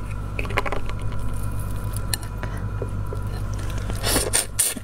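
Shell of a large marinated black tiger prawn being pulled apart by hand: scattered small crackles and wet squishes, then a louder burst about four seconds in as the prawn is bitten.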